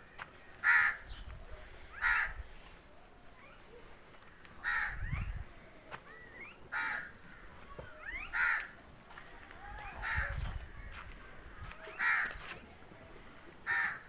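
A crow cawing over and over, about eight short harsh calls spaced a second and a half to two seconds apart.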